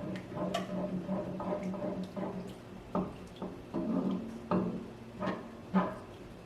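Spoon stirring a thickening milk gravy with ground beef in a pan: wet squishing and scraping, with a few sharper knocks of the spoon against the pan between about three and six seconds in. A steady low hum runs underneath.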